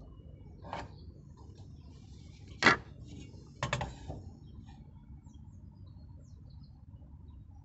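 A few sharp clicks and knocks as a metal carpenter's square is picked up and set against a wooden beam: a soft knock about a second in, the loudest click nearly three seconds in, then a double knock a second later.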